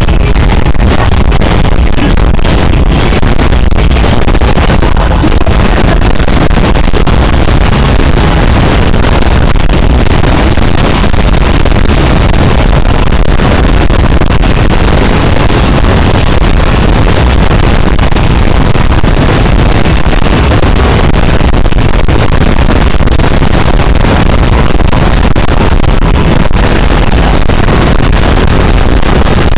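Live pop concert music picked up by a compact camera's overloaded microphone and clipped into a steady, distorted wash of sound in which no tune or voice stands out.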